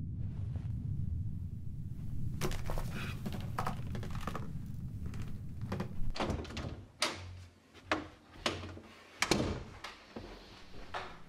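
A series of dull thuds and knocks, spaced about a second apart, in the second half, over a low hum that drops away about six seconds in.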